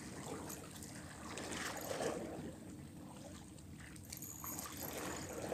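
Sea water lapping and sloshing against shoreline rocks, swelling about two seconds in and again near the end, over a low wind rumble on the microphone.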